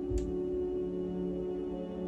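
Soft background music of steady, held ringing tones, with one light click just after the start.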